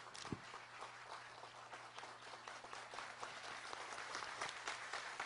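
An audience applauding, a dense patter of many hands clapping that grows a little louder in the second half. There is a brief low thump just after the start.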